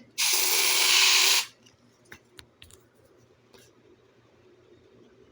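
Aerosol can of smoke-detector test spray hissing in one burst of about a second and a half, sprayed to set off a smoke detector. A few faint clicks follow.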